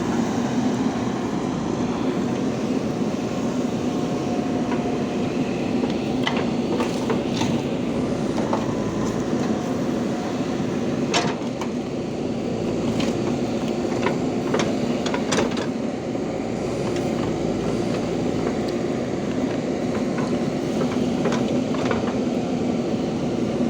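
JCB 3DX backhoe loader's diesel engine running steadily under work, with a series of sharp knocks in the middle stretch.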